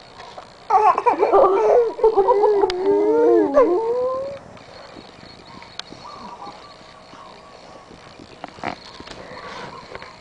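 A dog howls in one long wavering call of about three and a half seconds, starting under a second in, its pitch sliding up and down and rising at the end.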